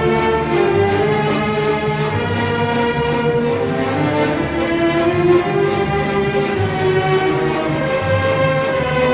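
Background orchestral music with sustained brass and strings over a steady beat.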